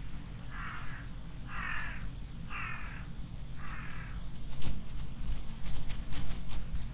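A crow cawing four times, harsh calls about a second apart, followed by a few sharp clicks near the end.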